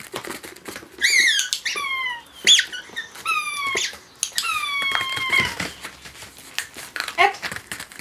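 Rubber squeaky toy squeaking repeatedly as a dog presses it down with its front paws: about six squeaks, each falling in pitch, the longest about halfway through.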